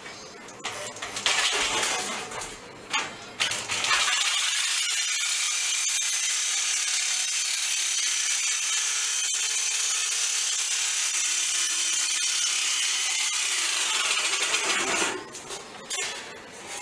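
Jigsaw set across a bench vise, cutting sheet steel fed into its blade: a steady high-pitched rasping whine that starts about four seconds in and tails off a couple of seconds before the end. Clinks and knocks of the steel being handled come before and after the cut.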